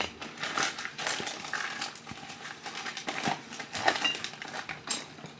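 Small items being rummaged through by hand: rustling and crinkling packaging with scattered clicks and taps, a sharp click at the very start.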